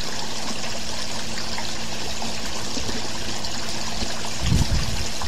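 Steady hiss with a low hum under it, and a brief low thump about four and a half seconds in.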